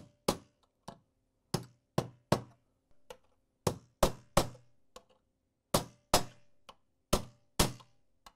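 Ball-peen hammer striking a steel punch to drive a new external gear down into a KitchenAid stand mixer's gear housing: a run of sharp taps, two or three a second, some harder than others, as the punch is moved around the gear to seat it evenly.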